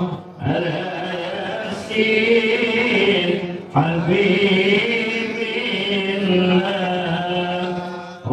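A man reciting the Quran in melodic tilawah style into a microphone, one long drawn-out phrase after another, with short breaths about half a second in and near four seconds in.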